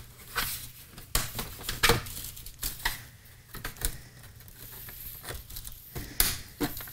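Black plastic case of an APC Back-UPS being pried apart by hand, its snap-fit end panel working loose: scattered plastic clicks, creaks and knocks, with a few sharper snaps.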